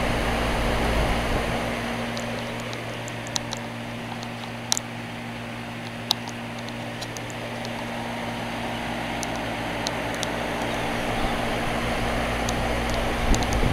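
Lennox HVAC unit running: its four-blade fan makes a steady whoosh over a steady hum, with a few faint sharp ticks.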